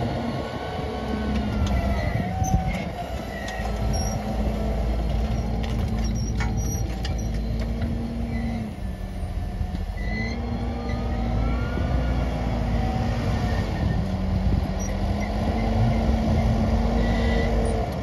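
Fendt 724 tractor engine running steadily with a deep rumble, its pitch dipping twice and picking up again as the engine speed changes.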